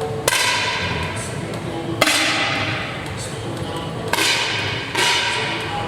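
Four air rifle shots, each a sharp crack followed by a brief ringing tail: one near the start, one about two seconds in, and two close together about a second apart near the end.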